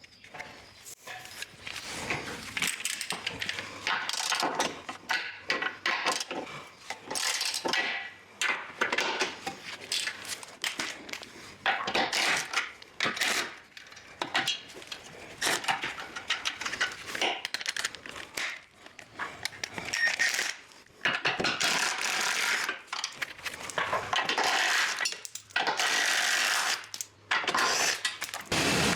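Cordless impact wrench running in repeated short bursts as it undoes bolts, mixed with clinks of metal bolts and tools.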